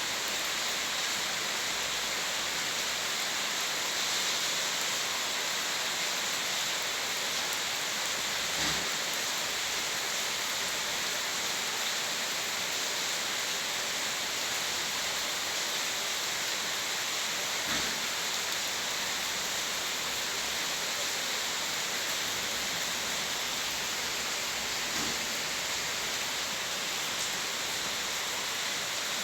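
Steady rain falling without thunder, an even hiss. Three faint short knocks stand out, at about nine-second intervals.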